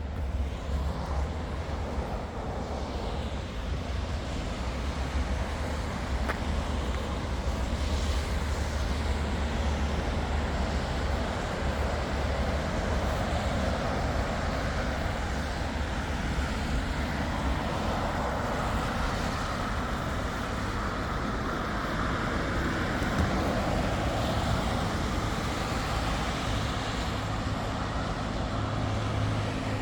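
City street traffic: motor vehicles driving past in a steady rumble that swells and fades gently.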